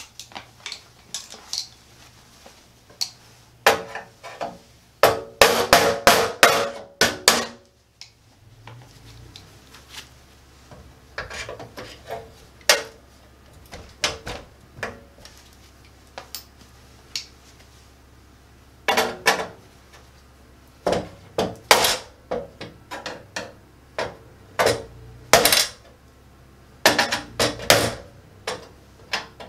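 Screwdriver and pliers knocking out a concentric knockout in the bottom of a steel breaker panel enclosure: clusters of sharp metal taps, clinks and scrapes as the steel slug is struck and worked loose.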